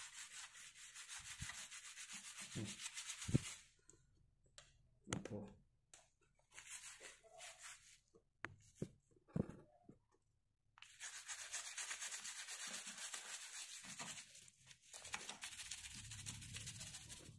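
Plastic brush scrubbing a wet, soapy mountain-bike rear sprocket cassette in rapid back-and-forth strokes, cleaning off grime and rust. The scrubbing stops after a few seconds, leaving scattered clicks and knocks, then resumes near the end.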